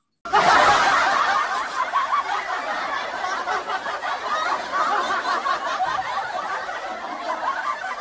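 A crowd of people laughing and chattering together, starting abruptly and fading out slowly.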